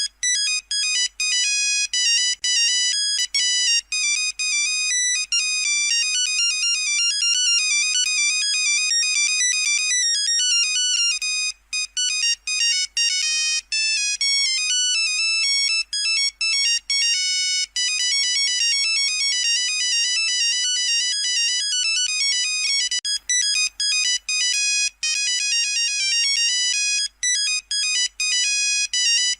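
Nokia 3310 monophonic ringtone playing: a fast run of short, high-pitched beeping notes with brief pauses between phrases.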